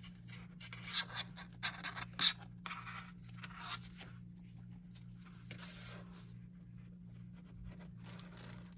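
Faint scratching and rubbing of a strap being pulled through a collar holster and snugged up, in a few short scrapes over the first four seconds, with a steady low hum underneath.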